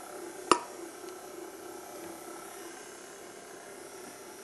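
Stand mixer running on its lowest speed with a steady hum, its beater turning through cake batter and whipped egg whites in a steel bowl. A single sharp clink about half a second in.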